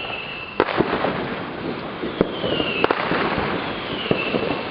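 Fireworks going off: a dense crackling with several sharp bangs, and whistling tones that slide down in pitch.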